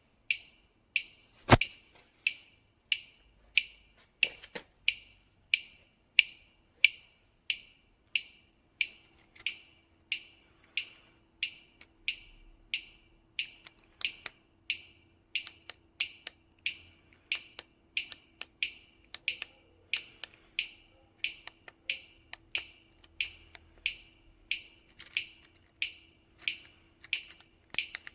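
Wireless motorcycle alarm beeping in a steady rhythm, short high electronic beeps about twice a second, with a few sharp clicks and a faint steady hum underneath.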